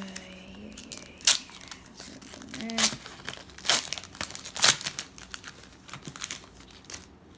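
Foil wrapper of a Pokémon trading card booster pack crinkling as it is torn open, with four sharp rips about a second apart.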